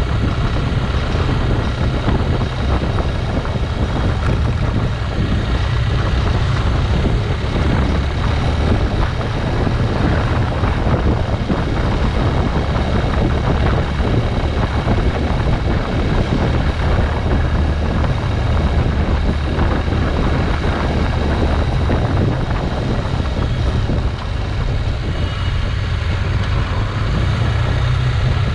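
Motorcycle on the move, its engine running under a steady rush of wind noise, with heavy low rumble from wind buffeting the microphone. The loudness dips briefly near the end.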